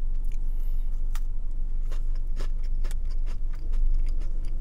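Someone chewing a chocolate biscuit: scattered small crunches and mouth clicks over a steady low hum.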